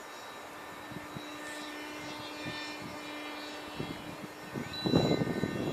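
Thunder Tiger Raptor 30 nitro RC helicopter in flight: a steady engine tone with a stack of whining overtones that glide up and down as it manoeuvres. Near the end a louder, irregular rush of wind buffets the microphone.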